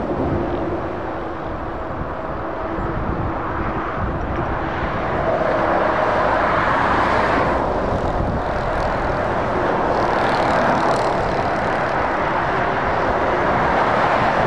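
Steady motorway traffic: lorries and cars passing on a dual carriageway, a continuous noise of tyres on tarmac and diesel engines that swells as vehicles come closer from about the middle on.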